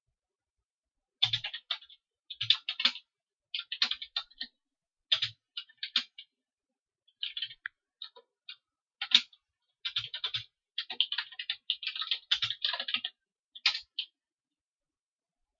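Computer keyboard typing in quick bursts of keystrokes with short pauses between them, as a command is entered. It stops with a last couple of keystrokes, the Enter key running the command, about a second and a half before the end.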